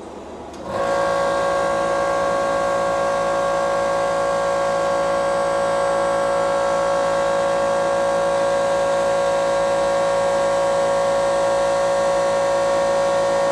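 A motor-driven machine starts abruptly about a second in and runs with a steady, even whine made of several pitched tones.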